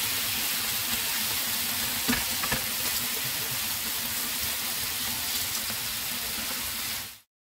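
Pork tapa sizzling steadily in hot oil in a frying pan, with two sharp clicks about two seconds in as metal tongs turn the pieces against the pan. The sizzle cuts off suddenly near the end.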